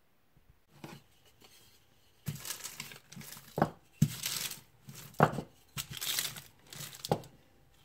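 Baking paper crinkling and rustling as it is folded over a slab of tart dough and rolled under a rolling pin, in a run of rustles over about five seconds. Four sharp knocks come among them.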